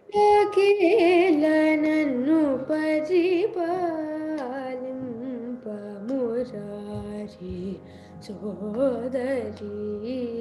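A female voice singing a Carnatic melodic line, the pitch bending and oscillating in ornaments, over the steady drone of a shruti box.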